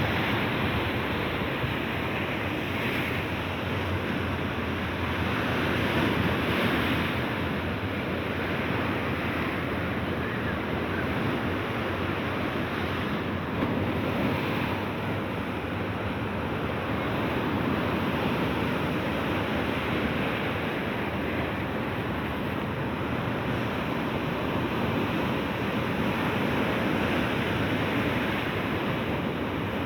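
Sea waves washing onto the shore: a continuous rush that swells gently every few seconds.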